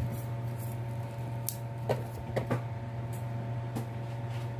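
A steady low electrical hum with a few faint higher tones runs throughout. About five short, light clicks and rustles come over it as the ceiling fan's lead wires are handled and twisted together by hand.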